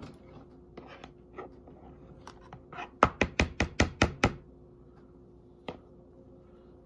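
A quick run of about eight sharp taps, a hard object rapped against a hard surface, lasting about a second, over a faint steady hum, with a few softer ticks and one more tap later on.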